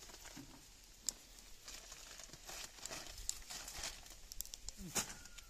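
Leaves of a dense vine rustling and a plastic bag crinkling as produce is picked by hand, with scattered small snaps and clicks.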